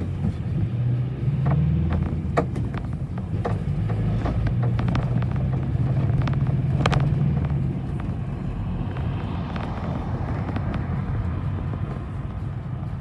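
City bus engine running under way, heard from inside the passenger cabin, with a steady low hum and scattered sharp interior rattles and clicks. The engine hum eases off about eight seconds in.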